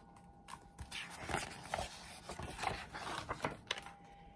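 Paper rustling and a series of irregular soft knocks as a hardback picture book is handled and its page is turned.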